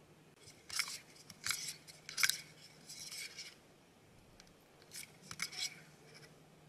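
Clear plastic spoon scraping and clicking against the inside of a plastic cup while scooping jelly pearls out of the liquid, in about six short, crisp bursts in two groups.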